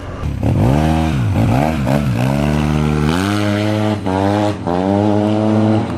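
Maxi-scooter with an aftermarket exhaust, loud and deep, revved up and down several times. It then pulls away, the pitch rising and holding steady, with two short dips near the end.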